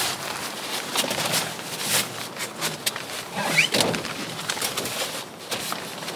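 Folding camp cot being assembled on a plastic tarp: clicks and knocks as its legs are fitted to the frame, with crinkling of the tarp and cot fabric. A short rising squeak sounds about three and a half seconds in.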